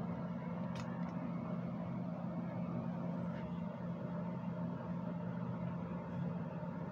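A steady low machine hum with a faint hiss, like a fan or air-handling unit, with a short click about a second in.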